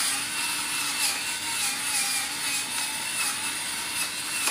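Electric pepper mill grinding fresh black pepper over a bowl: a steady motor whir with a faint wavering hum and the gritty rasp of the grinder.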